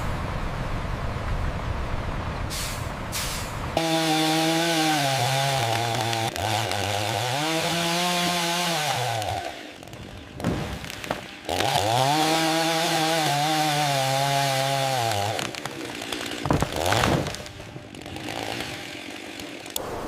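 A small engine or motor-driven saw running in two spells of about five and four seconds, its pitch sagging and climbing back in each, with a steady noise around them.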